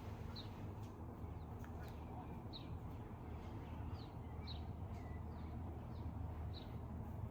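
Birds chirping faintly in the background, short high chirps every second or so, over a steady low hum.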